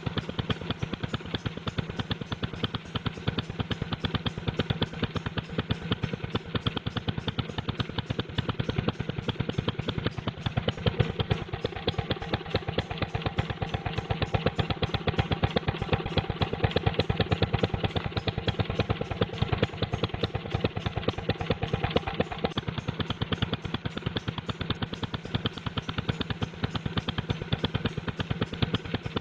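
Old engine running and sputtering, a rapid string of firing pulses that keeps going without a break. A faint whine joins in for a stretch in the middle.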